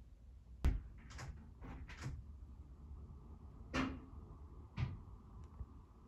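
A series of sharp knocks over a low rumble: the loudest comes less than a second in, three more follow about half a second apart, and two more come later. A faint steady tone sets in about halfway through.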